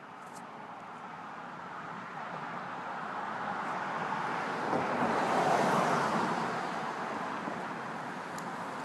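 A car passing on the street: engine and tyre noise swelling slowly to its loudest about five or six seconds in, then easing off.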